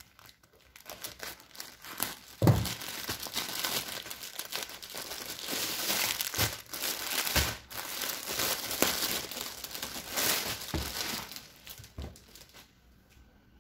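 Plastic packaging crinkling and rustling as hands open a courier mailer bag and pull out a garment in a clear plastic sleeve, with a few soft knocks among it. The rustling stops about a second before the end.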